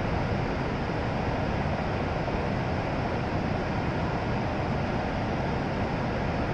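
E7 series Shinkansen standing at the platform after arrival, its onboard equipment running as a steady, even rush of noise.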